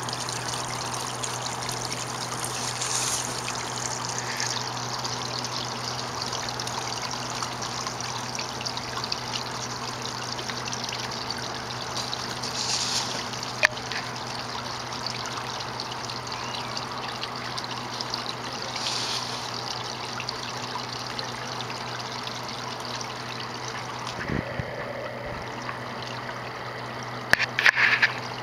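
Steady trickling water running into a garden koi pond. Near the end, a quick burst of loud, sharp repeated sounds.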